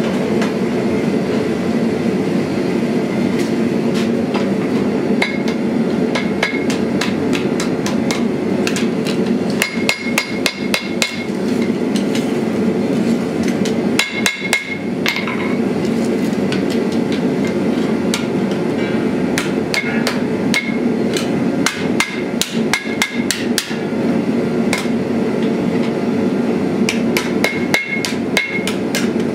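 Hand hammer striking red-hot sheet steel on an anvil: a long series of sharp blows, sparse at first and then in quick runs from about five seconds in, with some blows ringing briefly off the anvil. A steady low rushing noise runs underneath.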